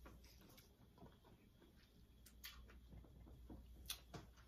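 Near silence with a few faint clicks and small mouth and handling noises from eating lobster tails, the strongest clicks near the end.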